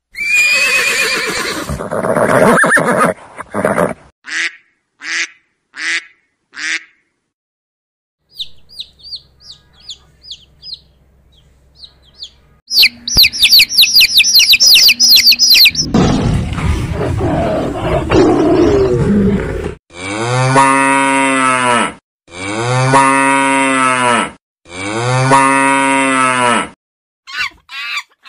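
A string of different animal calls. First a flock of baby chicks peeping rapidly and high-pitched, faint at first and then loud, and later three long cattle moos about two seconds each. Shorter, noisier animal sounds come at the very start.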